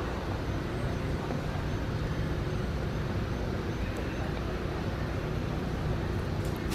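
Steady low rumble of outdoor background noise, with a couple of faint clicks about four seconds in and near the end.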